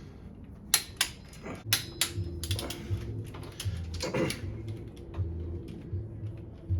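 Ratcheting clicks of a Pittsburgh click-type torque wrench tightening the Nissan RB20's cylinder head bolts to 40 ft-lb. The sharp clicks are irregular and come thickest through the middle.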